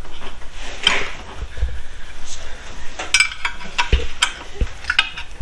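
Irregular light clatter and metallic clinks of small hard objects being handled, with a few ringing clinks in the second half.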